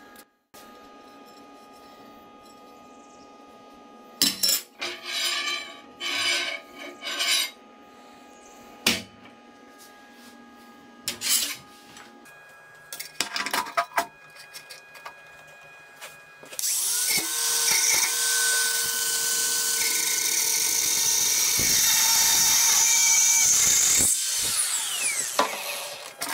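A power tool spins up and runs steadily for about seven seconds, working on a thin steel disc clamped to a steel welding table. Earlier come short clattering bursts of metal parts being handled.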